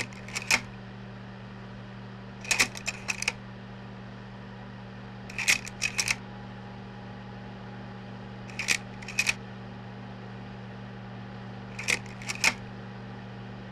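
Projector running with a steady low hum, and a short cluster of three or four sharp mechanical clicks about every three seconds, five times in all.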